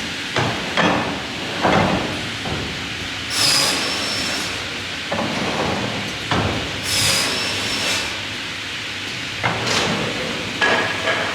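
Salvapush 2000 optimising crosscut saw at work: a steady machine noise with repeated sharp wooden knocks, and two saw cuts through timber about three and a half seconds apart, each lasting about a second. The sound cuts off suddenly at the end.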